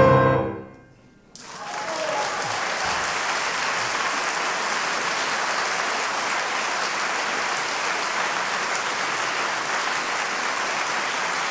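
The last chord of a grand piano dies away in the first second. After a short hush, an audience claps in steady applause.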